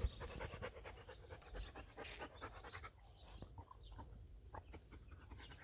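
Young German shepherd dog panting faintly.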